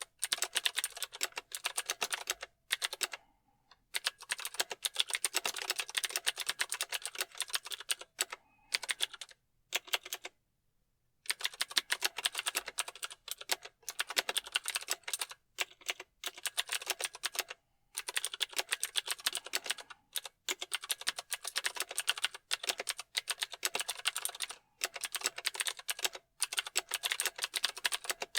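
Fast, continuous typing on a mechanical keyboard: dense runs of sharp key clicks, broken by brief pauses, the longest about ten seconds in.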